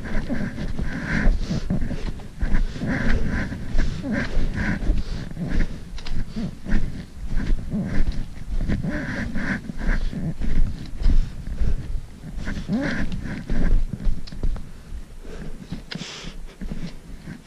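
Footsteps crunching through snow and a hiker's heavy breathing in quick repeated breaths, over a constant low rumble on the microphone.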